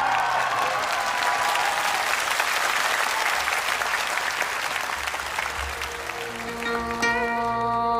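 Audience applauding, a dense even clatter of clapping that eases slightly over several seconds. Near the end, the held tones of the next piece of music come in.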